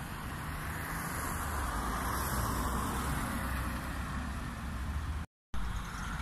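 Road traffic noise: a vehicle passing, the sound swelling about two seconds in. The sound drops out completely for a moment near the end.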